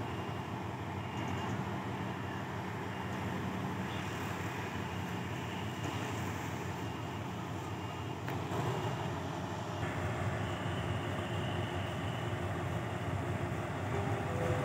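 Diesel locomotive hauling a passenger train slowly along the station track, its engine a steady low hum that grows a little louder about two-thirds of the way in.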